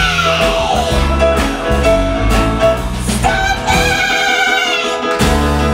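Live band of piano, bass, drums and guitar playing a show tune while a woman sings, holding one long note with vibrato in the second half.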